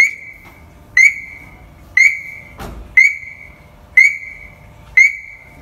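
Mahindra Scorpio S11's anti-theft alarm beeping, set off from the remote key fob: one loud, high-pitched beep about every second, six in all. A dull knock about two and a half seconds in.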